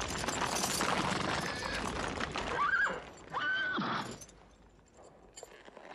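Horses' hoofbeats and the commotion of riders pulling up, then a horse whinnies twice, short calls about three seconds in, the second trailing down.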